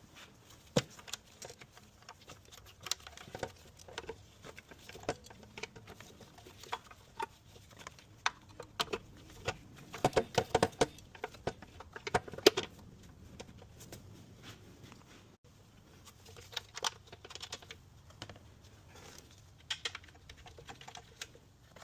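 Irregular light clicks and taps of hand tools and engine parts being handled during spark plug and ignition coil work, with a busier run of clicks about ten to thirteen seconds in.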